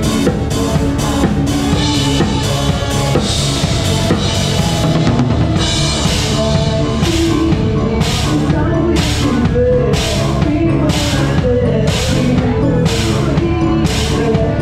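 Live band playing with a drum kit heard close up from the drummer's seat, the drums loudest over the other instruments. From about halfway the hits land evenly, about two a second.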